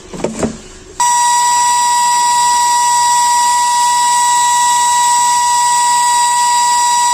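A steady, loud, high-pitched electronic beep tone held unbroken for about six seconds, starting about a second in and cutting off suddenly.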